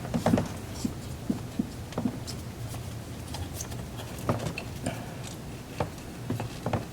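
Scattered light clicks and taps of hands handling parts and cables while refitting them on a car, over a steady low hum.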